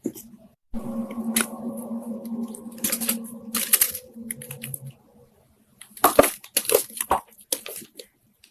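Crisp crunches of dry Chinese loess clay being bitten and chewed: a few crunches in the first half, then a quick run of them near the end. A steady low hum sits under the first half.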